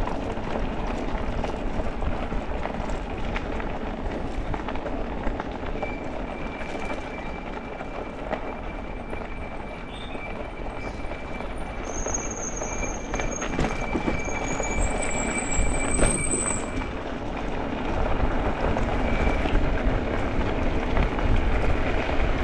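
Wind buffeting the microphone and tyre noise of an e-bike riding downhill. A thin steady high-pitched squeal runs through the middle, with a higher squeal rising in pitch for a few seconds near the middle.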